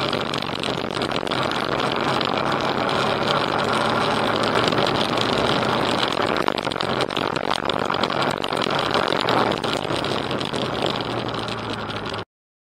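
Motorcycle engine running steadily while riding, heard through an onboard camera with heavy wind and road noise over it. The sound cuts off abruptly near the end.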